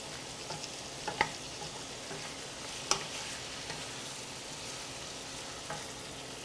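Zucchini noodles and shrimp sizzling in olive oil in a frying pan as they are tossed and stirred, with a steady frying hiss and a few sharp clicks against the pan.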